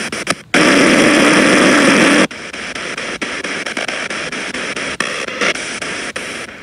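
P-SB7 Spirit Box radio sweeping down the FM band through a portable speaker: choppy radio static broken by quick clicks, several a second, as it jumps from station to station. About half a second in, a loud steady rush of hiss takes over for nearly two seconds before the choppy sweep resumes.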